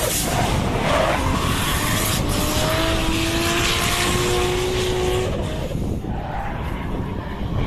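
Drift car's engine running hard, its note wavering up and down, with tyres skidding through a sideways slide. The sound turns duller and a little quieter from about six seconds in as the car pulls away.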